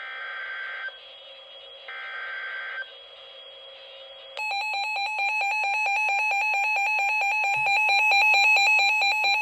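Emergency Alert System SAME header data bursts: two harsh digital screeches of about a second each, a second apart, ending the three-burst header that opens a new warning. Then, about four seconds in, a loud, rapidly pulsing electronic alert tone starts and keeps sounding.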